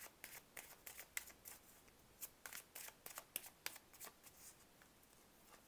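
A tarot deck being shuffled by hand: a faint run of quick, papery card clicks that thins out after about four seconds.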